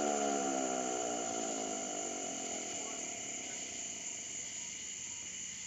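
Federal Signal Model 2 electromechanical air raid siren winding down, its pitch falling and fading out over the first two seconds or so. Crickets chirp steadily underneath.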